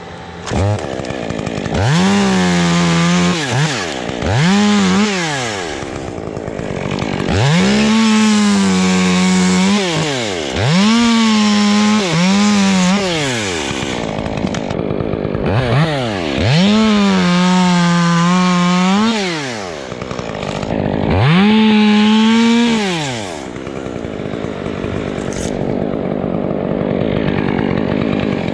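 Chainsaw revved to full throttle about six times, each time holding a high steady pitch for one to three seconds before dropping back to idle.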